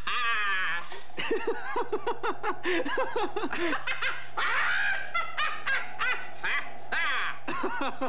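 Cartoon character voices laughing hard, a rapid run of chuckles that goes on without a break.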